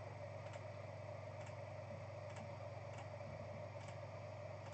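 Faint light clicks, roughly one a second, over a steady low hum.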